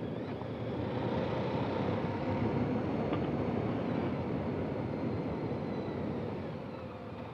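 Motorcycle riding at road speed: a steady rush of wind and engine noise, easing off a little near the end.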